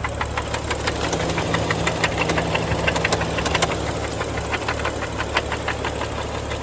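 2012 BMW 135i's N55 turbocharged straight-six running, with sharp knocks several times a second over its steady hum. It is an unexplained engine knock that the owner cannot place as rod knock or lifter noise.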